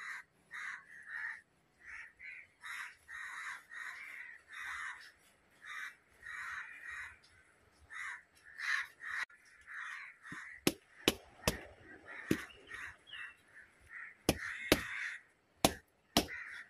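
Crows cawing over and over in short, harsh calls. From about two-thirds of the way in, a knife chops through a fish with a series of sharp knocks, about eight of them, louder than the calls.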